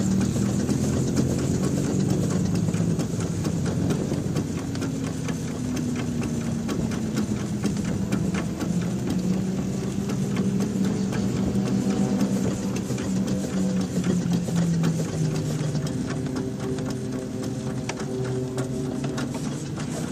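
1910 Stanley Steamer under way, its two-cylinder steam engine running with a rapid, light mechanical clicking over a steady hum that drifts slowly down and back up in pitch.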